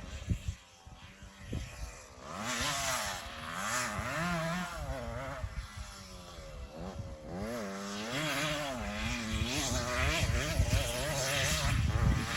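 Pit bike engine revving up and down as it is ridden, its pitch climbing and dropping again and again, quieter for the first couple of seconds and then louder.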